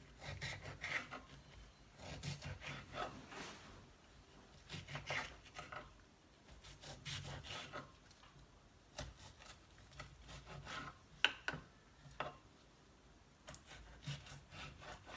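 Knife chopping bell pepper finely on a chopping board: bursts of quick cutting strokes every couple of seconds, with a couple of sharper knocks of the blade on the board about eleven and twelve seconds in.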